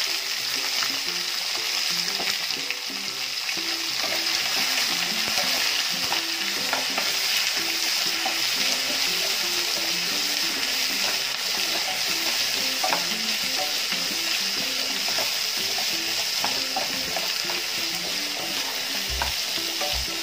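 Chopped onions sizzling in hot oil in a nonstick frying pan while a wooden spatula stirs them. A steady frying hiss runs under small scattered clicks and scrapes from the stirring.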